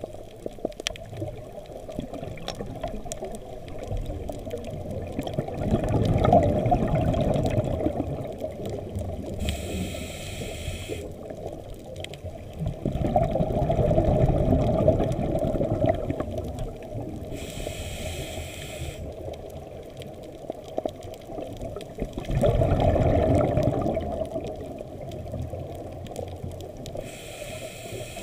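Scuba breathing through a regulator, heard underwater: three long bubbling gushes of exhaled air alternate with three shorter, higher hisses of inhalation, a breath every eight or nine seconds. Faint crackling lies underneath.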